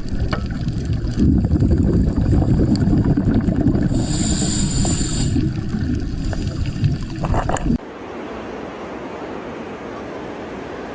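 Loud rush of wind and water with heavy low buffeting on the microphone. About eight seconds in it cuts off abruptly to a quieter, steady rush.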